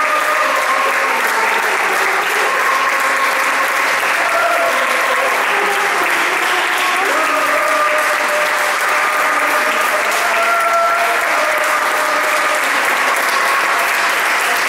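Audience applauding steadily and without a break, with some voices heard over the clapping.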